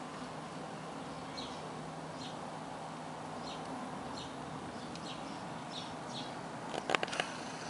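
Steady background hiss with faint, short, high chirps repeating about once or twice a second, and a quick cluster of sharp clicks about seven seconds in.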